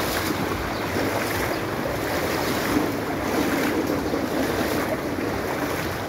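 Floodwater sloshing and splashing steadily as someone wades through shallow water covering a street.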